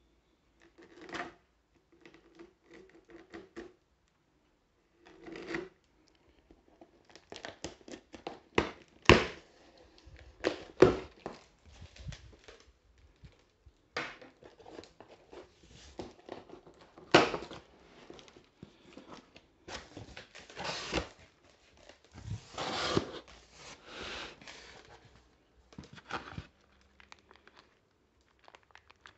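A knife slitting the packing tape on a cardboard box, then the cardboard flaps being torn and pulled open, with irregular scrapes, rips and sharp knocks.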